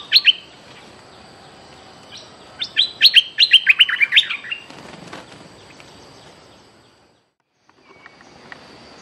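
A bulbul calling: a quick run of about ten sharp, falling, high chirps about three seconds in, after a short burst of the same notes at the start. Near the end the sound drops out briefly, then faint ticking follows.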